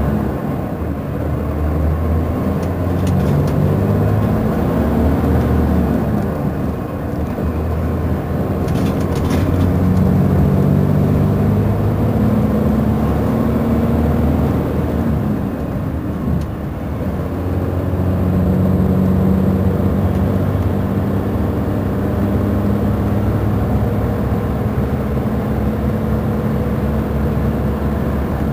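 Mercedes-Benz Intouro bus's Euro 4 diesel engine running under way, its pitch rising and falling as the bus accelerates and changes gear, with two brief dips in level, then running steadier toward the end.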